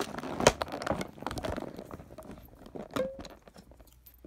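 Hands freeing a fashion doll from the ties that hold it in its box: scattered small clicks and knocks with faint rustling. The loudest knock comes about half a second in, and the handling grows quieter near the end.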